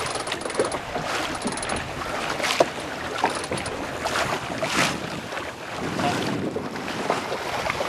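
Water splashing and slapping against a sailing boat's hull as it moves through light chop, with wind buffeting the microphone.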